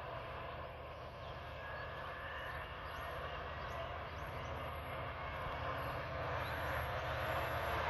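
EMD WDP4 diesel locomotive's two-stroke V16 engine running under power as the train approaches, a steady drone that grows gradually louder.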